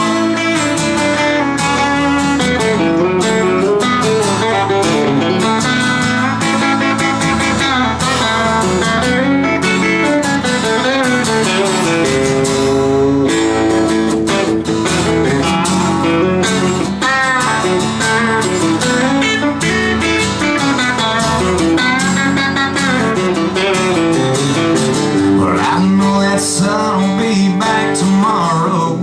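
Acoustic guitar strummed steadily, playing a country song live.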